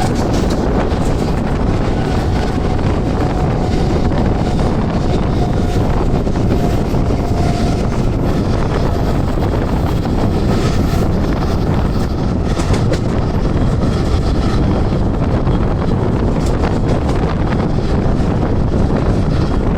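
Mumbai local electric train running at speed, a steady rumble of wheels and carriage with wind buffeting the microphone. A faint whine sounds through the first several seconds.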